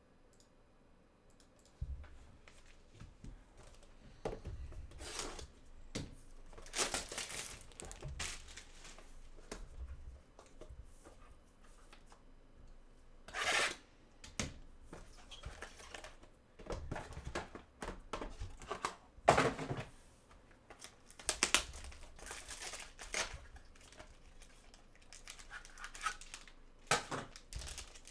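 A trading card box and its packs being torn open by hand: plastic wrapper tearing and crinkling in irregular bursts that start about two seconds in, with low knocks as the box is handled.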